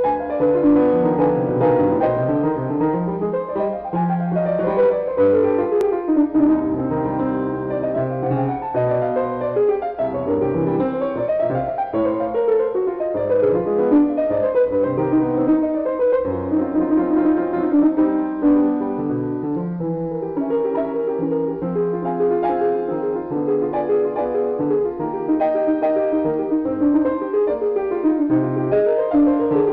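Piano music playing flowing runs of notes that sweep up and down.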